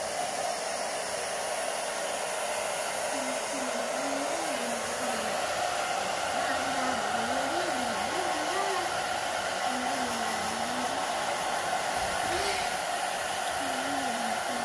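Handheld UNIX hair dryer running steadily, blowing on a dog's wet fur. A faint wavering tone rises and falls beneath it from a few seconds in.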